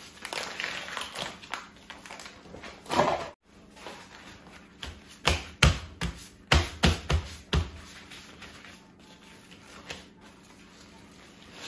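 Plastic film crinkling as it is peeled off a plastic tray of raw steaks. About five seconds in comes a quick run of taps and thumps as paper towel is pressed and patted down on the steaks in the tray to dry them.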